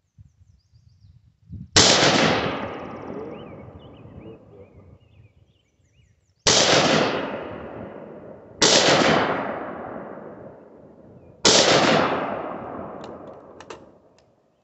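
Four single shots from an AR-15-type rifle (Diamondback DB15 with an 18-inch stainless .223 Wylde barrel), spaced a few seconds apart, each with a long echo dying away.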